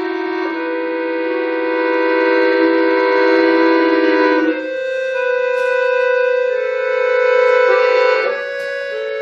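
Bayan (Russian button accordion) playing slow, sustained chords. The chord changes about half a second in, again around four and a half seconds, and once more near the end.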